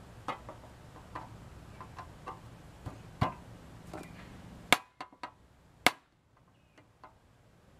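Irregular light clicks and taps of screwdriver tips and loose saw nuts against a handsaw's wooden handle and saw plate as the saw nuts are unscrewed, with a few sharper knocks about 3, 5 and 6 seconds in.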